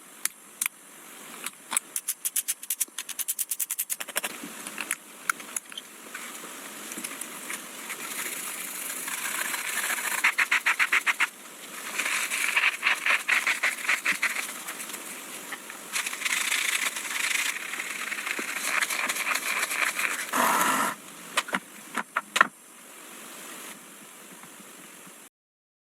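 Small metal parts of an old telescope being handled by hand: runs of rapid clicking, about eight to ten clicks a second, with bursts of scraping between them. The sound cuts off suddenly shortly before the end.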